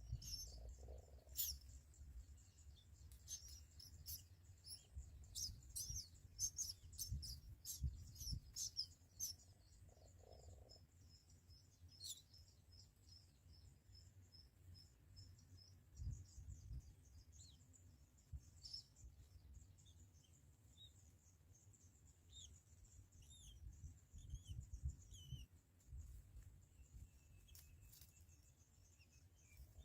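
Faint chirping of small birds: many short, high notes in quick bunches over the first several seconds, a fast trill of repeated notes about twelve seconds in, then scattered chirps. A faint low rumble runs underneath.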